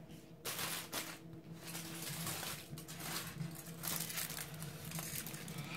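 Aluminium foil crinkling and rustling in irregular bursts as it is handled.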